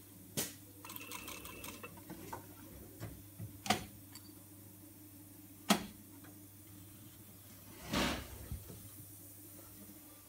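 Brother industrial sewing machine at work on a fabric mask: a steady low hum, a brief run of rapid fine ticks about a second in, and a few sharp clicks, with a short rustling burst about eight seconds in.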